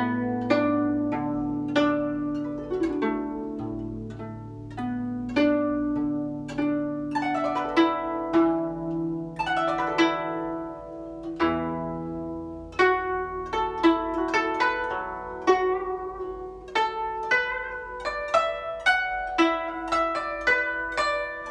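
Guzheng played solo with finger picks: a steady flow of plucked notes that ring on, low notes sustaining under the melody, the plucks coming quicker in the second half.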